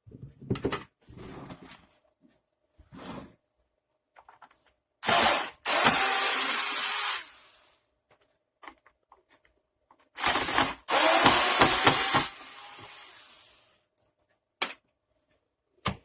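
Electric screwdriver running in two spells of about two seconds each, about five seconds apart, backing out the screws that hold the vacuum cleaner's top cover. Each spell fades out. Light handling knocks and clicks come before the first.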